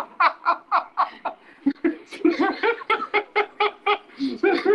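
Hearty human laughter: a rapid string of short 'ha-ha' pulses, about five a second, breaking off briefly about a second in and then starting up again.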